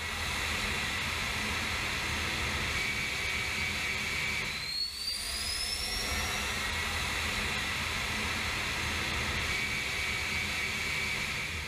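Jet engine running steadily on a test stand, a continuous noise with a faint high whine. About five seconds in, the sound dips briefly and a high whine rises in pitch.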